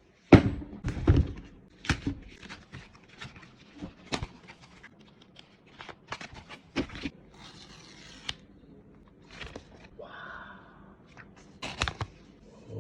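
Cardboard and paper packaging being opened and handled: a run of irregular sharp taps and knocks, loudest in the first second, with short bouts of tearing and rustling.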